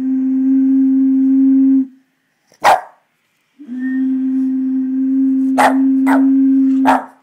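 A bottle blown across its mouth sounds a steady low note twice, each held for a few seconds and cut off sharply. A Boston terrier barks at it, once in the gap between the notes and three times over the second note.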